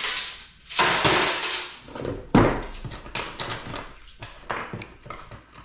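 Clattering and scraping of computer parts being pulled apart and handled, with a sharp knock about two and a half seconds in and scattered smaller clicks and knocks after it.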